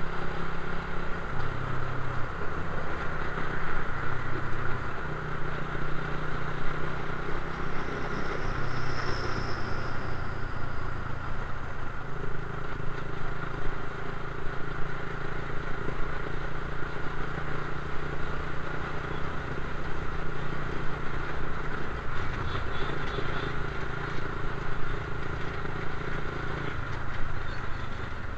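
Suzuki Raider 150 carburettor motorcycle engine running under way, its note stepping up and down in pitch several times as throttle and gears change, with steady wind and road hiss.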